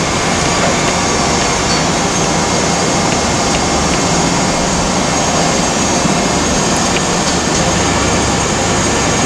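Steady, loud rushing noise of running machinery, even and without rhythm.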